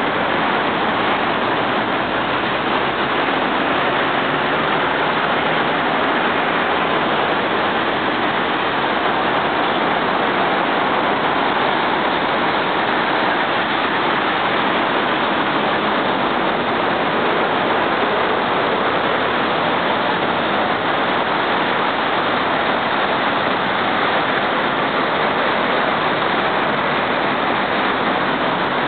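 Steady noise of dense road traffic, an even wash of tyres and engines with no single vehicle standing out.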